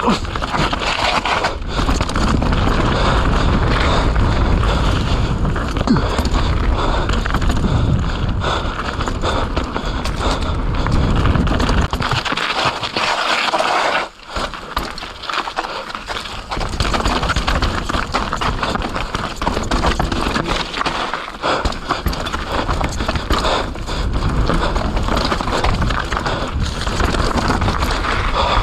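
Mountain bike riding fast down a wet dirt trail: tyres scrabbling over dirt and roots, the bike rattling and clattering, and heavy wind rumble on the microphone. The noise eases briefly about halfway through, then picks up again.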